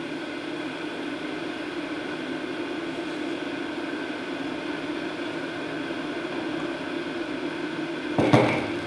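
A steady low hum with hiss, an even drone with no rhythm. A short swell of noise comes near the end.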